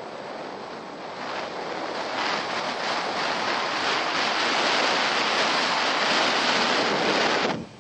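Wind rushing over the microphone of a camera on a snowboarder running straight downhill at about 40 mph, with the board sliding fast over the snow. It grows louder as speed builds and drops off suddenly near the end.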